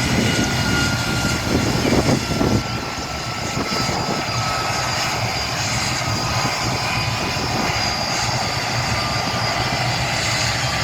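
Helicopter turbine engines and main rotor running steadily, a high turbine whine over the rotor's low pulsing beat. There is louder rushing in the first three seconds.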